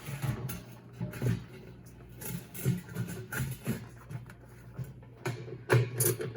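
Irregular light knocks and clunks of washer parts being handled and turned during reassembly. Near the end, a regular run of sharp taps like a beat starts up.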